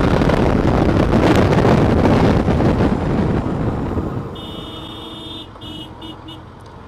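Wind buffeting a motorcycle rider's camera microphone, with the motorcycle running underneath at riding speed. About four seconds in the noise drops away, and a steady beeping tone sounds, held for about a second and then cut into a few short beeps.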